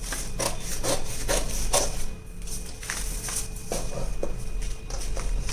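Scissors cutting along the armhole curve of a paper blouse pattern: a run of short crisp snips, about two a second for the first two seconds, then sparser.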